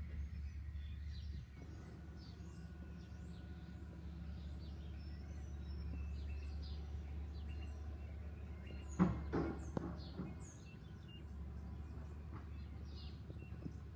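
Small birds chirping repeatedly in short high notes over a steady low hum. A few sharp knocks or clicks come about nine seconds in and are the loudest sounds.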